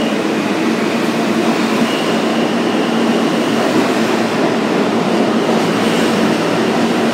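R160 subway train moving past along the platform, a steady rumble of wheels and traction motors. A low hum runs throughout, with a thin high whine that comes and goes.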